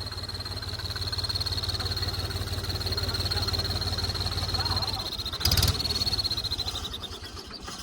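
Mahindra 275 DI tractor's three-cylinder diesel engine running with an exhaust whistle fitted in its silencer, giving a steady high whistle that pulses with the exhaust beats. About five and a half seconds in there is a brief loud thump, and near the end the whistle sags a little in pitch and fades.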